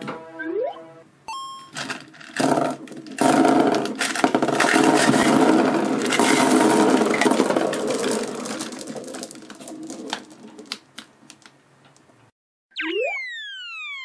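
Round hard candies pouring out of a tipped plastic bottle and scattering across a table in a long, dense clatter. A short cartoon boing and a ding come before it, and falling slide-whistle effects come near the end.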